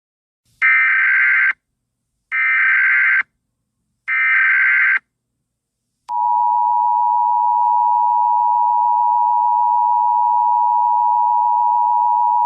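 Emergency Alert System tones: three short bursts of SAME header data, each a little under a second with short gaps between, then about six seconds in the steady two-tone EAS attention signal starts and holds.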